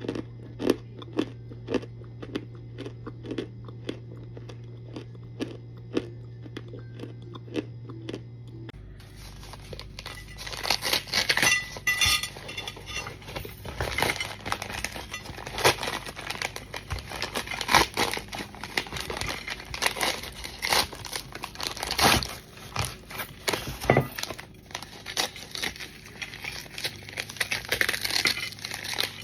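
Starch bricks crunching as they are handled and broken, at first in sharp crunches about two a second over a low hum. About nine seconds in, the sound changes to a denser crinkling and crunching.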